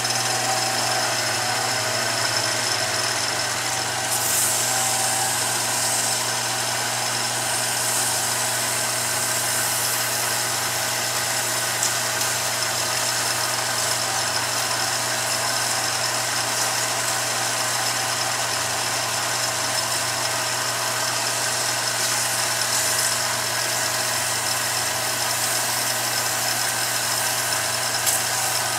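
A billiard cue lathe running steadily with a constant low motor hum and a hiss, while 1000-grit sandpaper is held against the spinning cue shaft.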